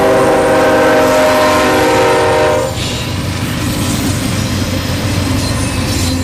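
Diesel locomotive's multi-chime air horn holding a long chord that cuts off about two and a half seconds in, then the steady rumble of the freight train rolling past.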